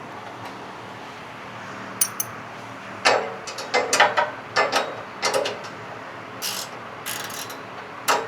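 Hand wrench ratcheting in short, irregular strokes as a nut is tightened onto a bolt, starting with two sharp clicks about two seconds in and growing fainter near the end, over a faint steady hum.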